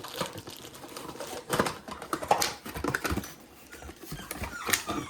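Hands handling packaging and small plastic RC car parts: scattered clicks, taps and rustles, with a few brief pitched sounds that resemble a pet's cries.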